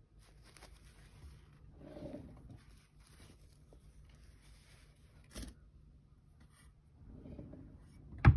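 Faint rustling and handling of a small paper-wrapped package as it is tucked into a drawer, with a light knock about five seconds in. Near the end comes one sharp knock as the drawer is pushed shut.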